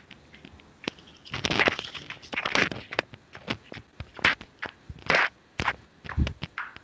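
Handling noise from a handheld device being carried while its microphone is live: irregular clicks and knocks with rustling, scraping bursts. The two loudest bursts come between about one and three seconds in.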